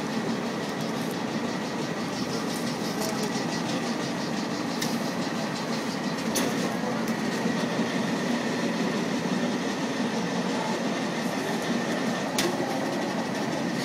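Plastic plate-making machinery running with a steady mechanical noise and a faint steady high whine. Occasional sharp clicks come through, the strongest about five, six and a half and twelve seconds in.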